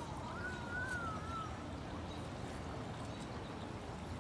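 Steady outdoor background rumble, with a thin wavering whistle during the first second and a half.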